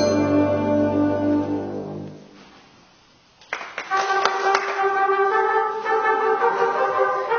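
Junior high concert band playing: a held chord fades away over about two seconds to a brief hush, then a few sharp hits land and the brass come back in loud with sustained notes.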